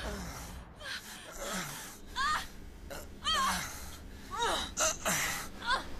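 A couple moaning and gasping during sex: a woman's short, high-pitched moans rise and fall about eight times, irregularly spaced, between breathy gasps, with a man's lower groans now and then.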